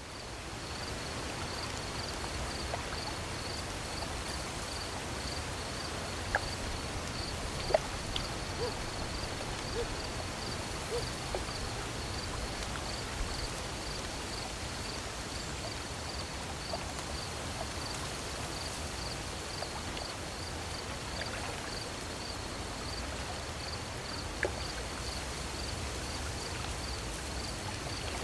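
Night ambience fading in: a cricket chirping in an even, steady pulse over a soft hiss, with a few short calls scattered through it.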